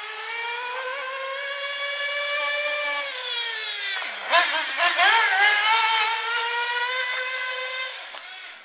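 Small nitro engine of an Xray XB9 1/8-scale buggy, a REDS engine, screaming at high revs during a high-speed run. Its pitch dips and wavers about four to five seconds in, the loudest moment. It then climbs back and holds a high whine before fading near the end.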